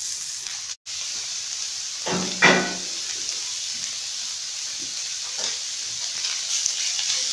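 Sliced, half-cooked shawarma chicken frying for a second time in a little hot oil on a black cast-iron griddle plate, sizzling steadily while a spatula stirs it. A short louder sound comes about two and a half seconds in.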